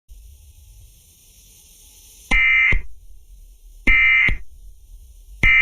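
Three short buzzy bursts of EAS SAME digital data tones, each about half a second long and about a second and a half apart, following a couple of seconds of faint radio hiss. Coming straight after the message, they are typical of the end-of-message code that closes an alert.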